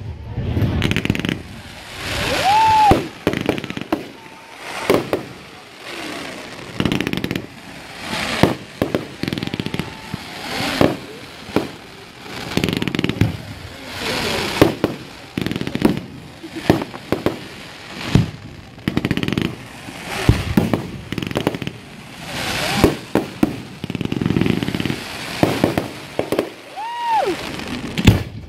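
Fireworks display: aerial shells bursting one after another, a sharp bang every second or so with echoing rumble and crackle between. Twice, a short whistle rises and falls.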